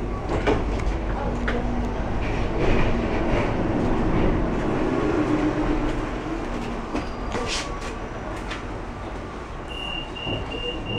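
Interior of a Ganz KCSV6 tram standing at a stop with its doors open: a steady hum with a few scattered knocks and steps. Near the end a high, evenly pulsing beep starts, the tram's door-closing warning.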